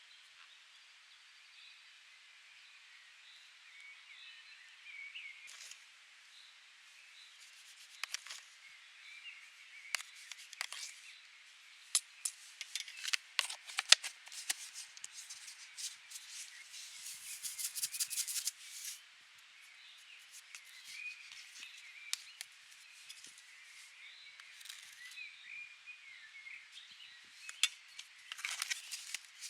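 Hand-work sounds: a run of sharp clicks and knocks, with a short scraping rush just past the middle.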